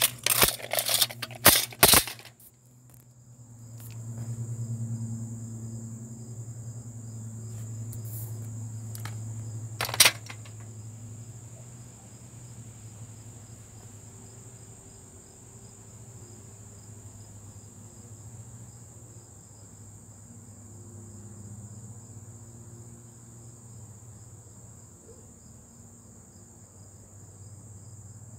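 Insects trilling in a steady, high, even drone, over a low hum that swells and fades between about four and ten seconds in. A burst of clattering clicks in the first two seconds and one sharp click about ten seconds in.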